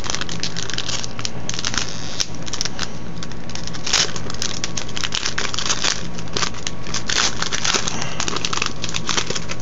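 Foil wrapper of a Magic: The Gathering booster pack crinkling and crackling irregularly as it is torn open by hand and the cards are pulled out.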